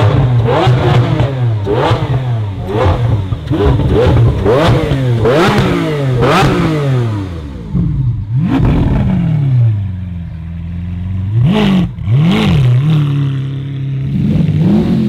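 Supercar engine revved hard in quick blips, about two a second for the first several seconds. A bigger rev follows, then it drops back to a steady idle between a few more short revs.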